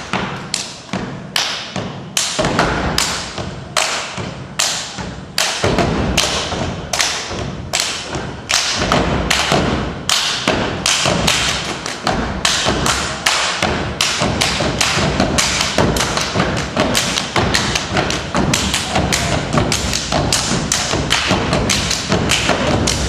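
Step team stomping and clapping in unison on a stage: a steady beat of sharp thumps and claps, about two a second at first, growing quicker and busier as the routine goes on.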